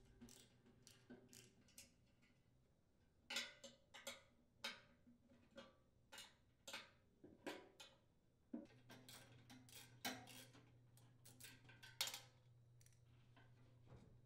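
Faint, irregular clicks and light metal clinks from about three seconds in, roughly one or two a second, as a 1/4-inch socket wrench works the furnace blower motor's mounting screws loose.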